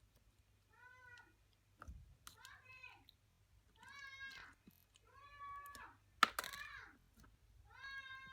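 A cat meowing again and again, about six rising-and-falling calls, with a sharp click about six seconds in.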